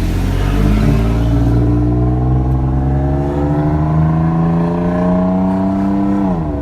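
Car engine accelerating hard, its pitch climbing steadily for about six seconds, then dropping sharply near the end as it shifts up a gear.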